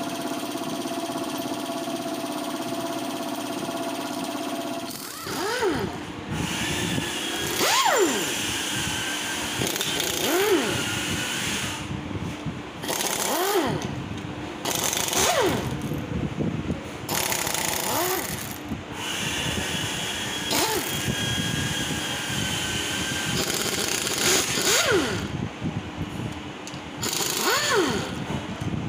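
Impact wrench working the bolts of a Hero Glamour motorcycle engine's clutch cover: about ten short bursts, each rising and then falling in pitch, with a hammering rattle. A steady hum runs for the first few seconds.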